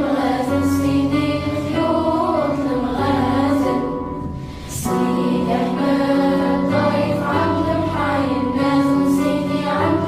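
Background music with choir-like voices holding long notes over a steady low bass, easing off briefly about halfway through and then swelling back.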